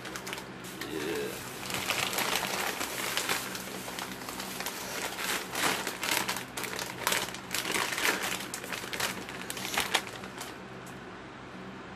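Crinkling of a plastic shopping bag and snack-chip bags being handled and opened, a dense irregular crackle that dies down near the end.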